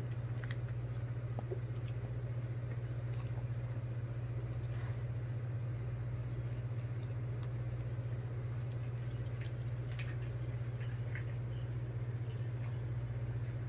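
A greyhound eating soft food from a paper plate: scattered small wet chewing and licking clicks, over a steady low hum that is the loudest sound.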